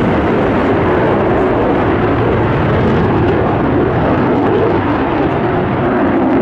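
MiG-29 fighter jet flying overhead, its twin RD-33 turbofan engines making a loud, steady jet noise.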